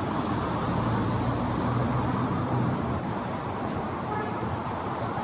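A Volkswagen saloon car driving slowly past close by, its engine hum and tyre noise rising and then easing over steady street traffic noise. About four seconds in come two short, sharp high-pitched sounds.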